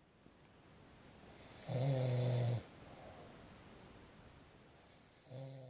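A man snoring in his sleep: one loud snore with a steady low pitch about two seconds in, lasting about a second. Fainter breathing follows, then the next snore begins near the end and is cut off.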